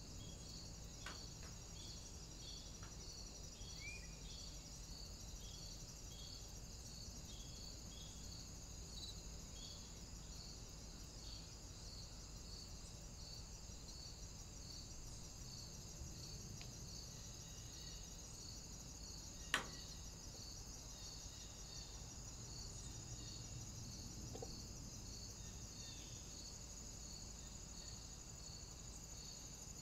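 Insects chirping steadily and faintly: a regular high chirp about twice a second over a continuous high trill. A single sharp click about two-thirds of the way through.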